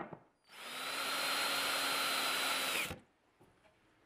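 Power drill running steadily for about two and a half seconds, then stopping, as it drives a screw to assemble a cabinet case. A short click comes just before it.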